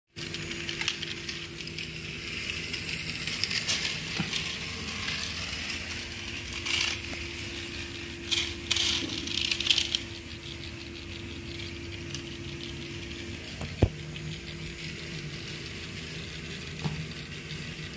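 Small electric motor of a battery-powered toy train locomotive humming steadily, with light plastic clicks and rattles as a toy locomotive is handled and set on plastic track. The hum stops about three-quarters of the way through, around a single sharp click.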